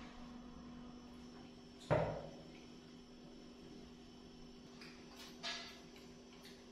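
A single sharp knock on a hard surface about two seconds in, ringing briefly, and a lighter knock near the end, over a steady low hum.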